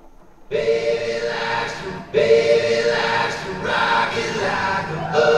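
Recorded country swing song starting about half a second in, opening with harmonized singing in long held phrases with short breaks between them.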